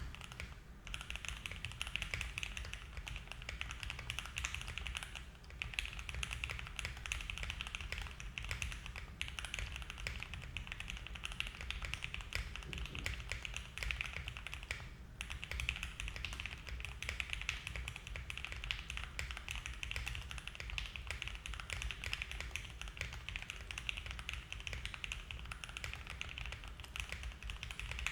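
Continuous typing on a Mode Envoy mechanical keyboard with lubed Gateron Oil King linear switches, an FR4 plate, plate and case foam and GMK keycaps: a steady stream of key clacks, with brief pauses about five and fifteen seconds in.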